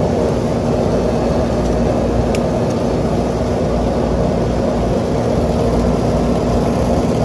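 Trane rooftop air-conditioning unit running steadily in cooling mode with its fans and compressor on, a continuous mechanical hum and rumble.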